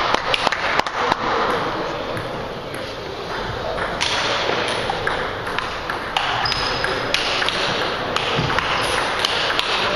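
Table tennis ball clicking off bats and the table, a quick run of hits in the first second, then scattered single hits.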